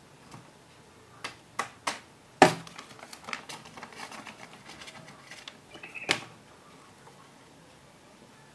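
Playing cards handled close to the microphone: sharp taps and clicks, a few about a second in, the loudest just after two seconds, a patter of lighter clicks, then another sharp snap about six seconds in.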